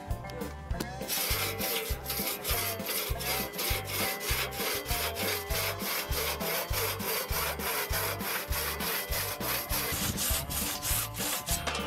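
Two-person crosscut saw cutting through a squared timber, the blade rasping in fast, even push-pull strokes, about three a second. The sawing starts about a second in and stops just before the end as the cut is finished.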